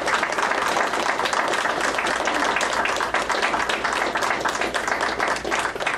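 A small group applauding, a steady patter of hand claps.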